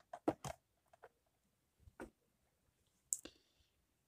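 Plastic DVD case being handled and stood on a shelf: a few faint, separate clicks and taps, with a brighter double click about three seconds in.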